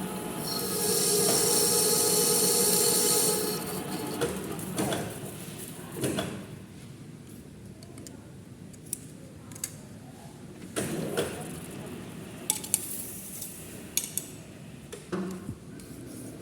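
Metalworking on a manual lathe: a loud, steady metallic squeal for about three seconds, then scattered sharp metal clinks and knocks.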